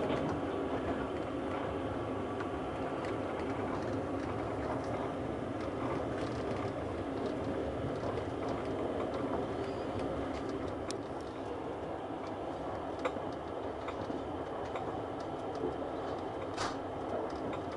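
Passenger train carriage running along the track, heard from inside: a steady rumble of wheels on rails, with a few sharp clicks in the second half.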